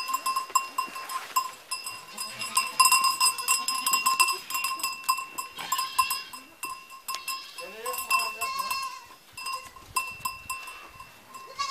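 Goats and their kids bleating now and then amid short knocks and shuffling, with a longer wavering bleat around eight to nine seconds in, over a steady high ringing tone.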